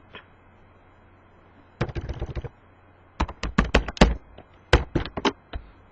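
Computer keyboard typing in three quick runs of keystrokes after a pause of nearly two seconds, as a mistyped command is deleted and typed again.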